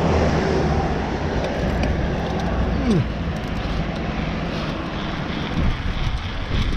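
Road traffic passing close by, with a vehicle engine's low hum loudest in the first few seconds and a pitch dropping near three seconds in. Wind rushes over the microphone and a mountain bike's tyres rumble on the paving stones.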